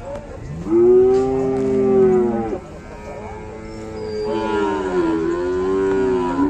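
Cattle mooing: two long calls, the first about half a second in and the second starting about four seconds in, each rising at the start and then held.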